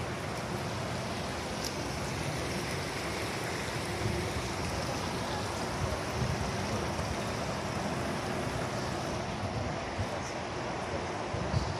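Steady rushing of spring water flowing from the pool, with wind gusting on the microphone.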